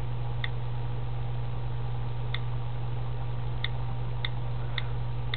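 iPod touch on-screen keyboard clicking as letters are typed: about six short, high ticks at irregular gaps. Under them runs a steady low hum.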